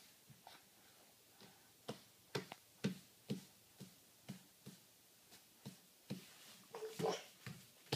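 Soft, regular thumps of a baby's bare feet kicking against a foam play mat, about two a second, starting about two seconds in. A brief baby squeal near the end.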